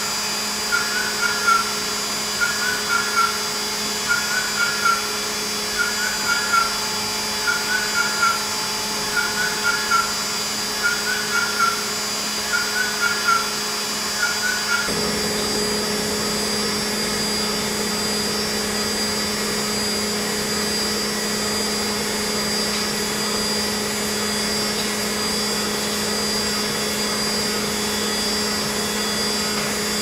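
Hwacheon Hi-M G1 vertical machining center with its spindle at 14,000 rpm, a 4 mm end mill rough-cutting graphite: a steady high machine hum. Over the first half, a short chirping cut sound repeats about every second and a half to two seconds, then stops about halfway, leaving only the steady spindle hum.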